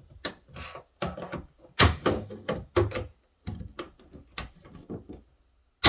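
A prying tool levering a circuit board off friction-fit mounting posts in a plastic case: a run of irregular clicks, knocks and creaks, then one very loud crack near the end.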